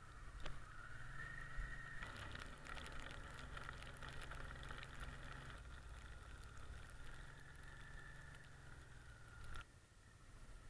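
Motorcycle engine running at low speed while riding over a rutted mud and snow track, with a stretch of rapid clicking and rattling from about two seconds in to about halfway. The sound drops quieter a second before the end.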